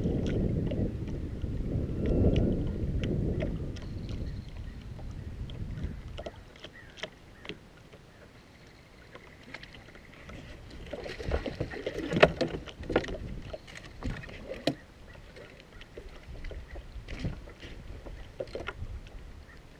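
Bass boat on the water: a low rumbling wash, loudest for the first few seconds, then scattered sharp clicks and knocks from fishing gear and footsteps on the deck as the angler casts and works a rod and reel.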